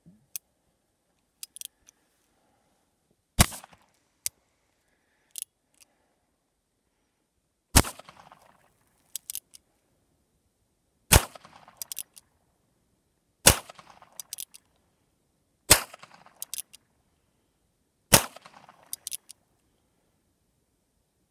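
Heritage Arms Rough Rider single-action .22 rimfire revolver firing six sharp shots a few seconds apart, each followed by a short echo. Small clicks between the shots are the hammer being cocked by hand for each shot.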